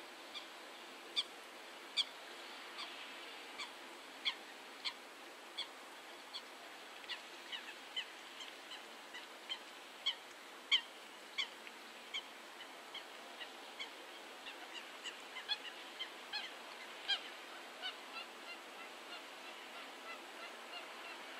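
Birds calling: a long run of short, sharp calls at irregular intervals, sometimes two or three a second, over a faint steady background.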